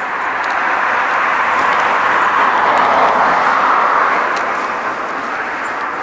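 A car passing on the road: a steady rush of tyre noise that swells to its loudest about halfway through, then fades away.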